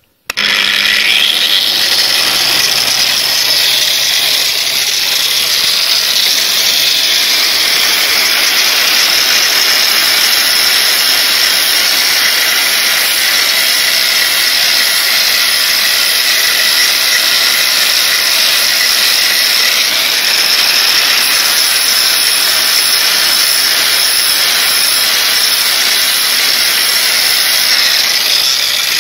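Angle grinder spinning up with a rising whine, then grinding the surface of a cast bench vise body: a loud, steady high whine with the hiss of the abrasive disc on metal, stopping abruptly at the end.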